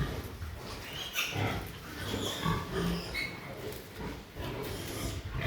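Pigs calling, a string of short calls, some low and some higher-pitched.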